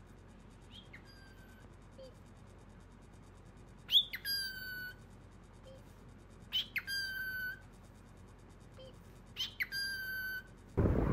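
Cockatiel calling: four whistled calls, each a quick upward sweep dropping onto a held whistle note. The first call is faint and the next three are louder, coming about every two and a half to three seconds.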